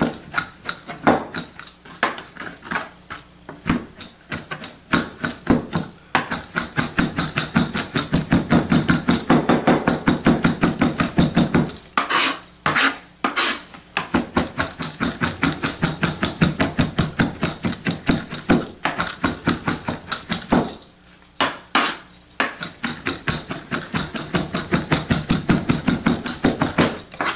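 Large kitchen knife chopping raw chicken on a plastic cutting board, mincing it by hand: scattered chops for the first few seconds, then long runs of fast, even strokes, several a second, broken by two short pauses.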